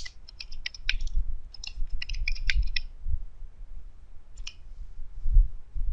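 Computer keyboard keystrokes: quick clicking in two short runs, then a single click about four and a half seconds in, over a low electrical hum.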